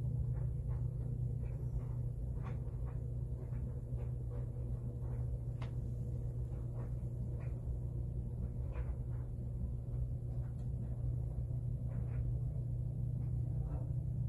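Steady low hum, with faint short clicks and taps scattered through it.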